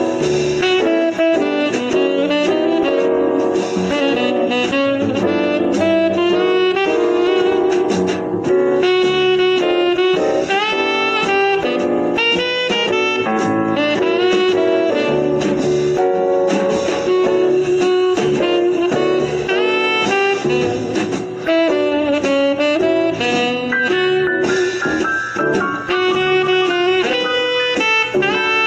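Background jazz music with a saxophone playing the melody.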